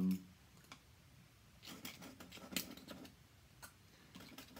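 Pen scratching on paper in short, faint strokes and ticks as ink lines are drawn, busiest around the middle.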